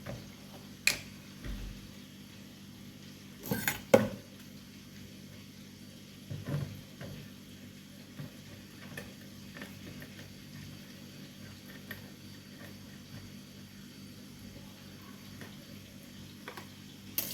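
Kitchen handling sounds while a sauce is mixed: a few scattered clinks and knocks of dishes and utensils, the loudest a short cluster about four seconds in, over a faint steady hum.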